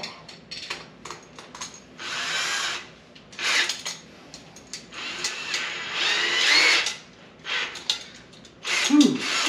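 Drill spinning a stainless steel mix-stir rod in a fermenter of mead must (honey and cold brew coffee), run in short bursts. The longest burst lasts about two seconds and its motor whine rises and falls.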